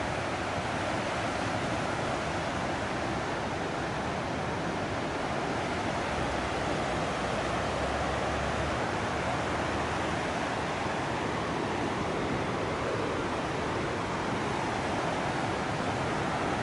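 Ocean surf breaking on the shore, a steady wash of noise, with wind.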